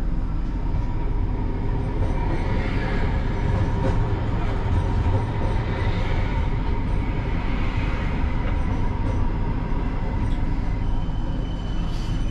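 Siemens Combino tram running along the track, heard from the driver's cab: a steady low rumble of wheels on rail, with a rushing noise that swells and fades in the middle. A thin high-pitched tone sets in near the end.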